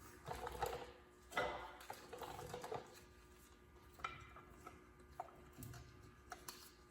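Brake pads being fitted into a disc brake caliper: a few separate light metal clicks and clinks, the clearest about a second and a half in and again about four seconds in.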